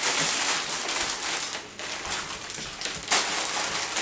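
Plastic snack packaging crinkling and rustling as it is handled, an uneven hiss with many small crackles.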